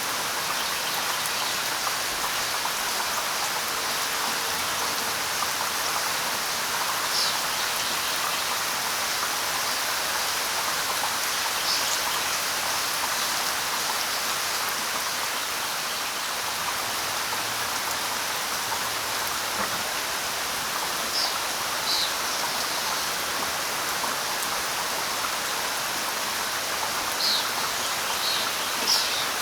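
Steady light rain falling, an even hiss. A few short high-pitched sounds stand out now and then, several of them close together near the end.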